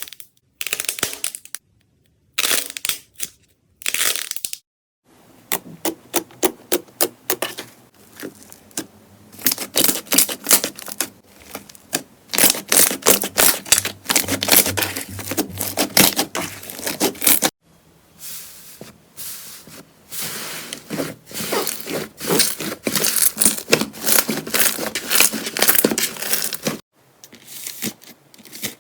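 Slime being squeezed and worked by hand, crackling and popping in quick runs of small clicks, in several separate stretches with short pauses between them.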